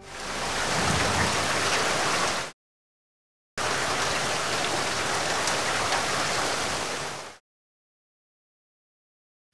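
Rain sound effect: a steady hiss of heavy rain in two stretches, about two and a half seconds and then about four seconds, with a second of dead silence between them. Each stretch stops abruptly, and the last two seconds are silent.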